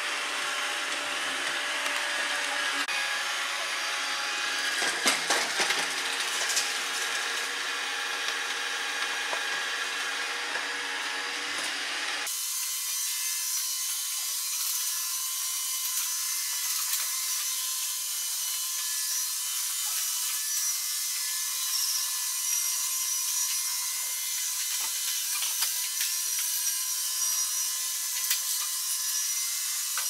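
Kitfort KT-533 robot vacuum cleaner running, a steady mechanical whir with a faint hum, and a few knocks about five seconds in. About twelve seconds in the sound abruptly turns thin and hissy as the low part drops away.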